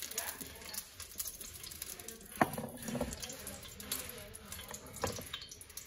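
Kitchen handling noises: cookware and a bottle being moved about on the stove and counter, with two short knocks, the sharpest about two and a half seconds in and another about five seconds in, over a faint hiss.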